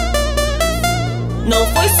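Electronic dance music with a deep bass line and wavering synthesizer tones over a steady beat.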